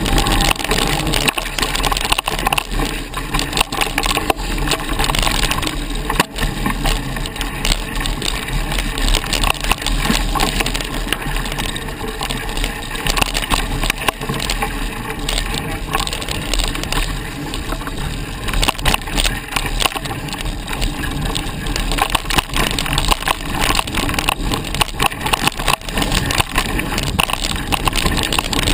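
Mountain bike riding fast along a dirt singletrack: tyres crunching over dry twigs and forest debris, with a constant clatter of small knocks and rattles from the bike over the rough ground, and a steady low wind rumble on the microphone.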